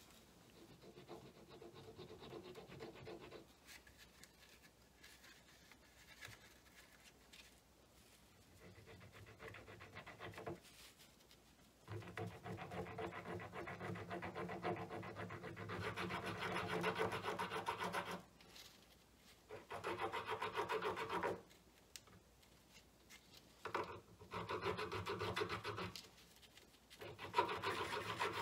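A rat-tail file rasping back and forth across a small molded cap, cutting a shallow groove. It is faint for the first several seconds, then comes in louder bouts of a few seconds each, with short pauses between them.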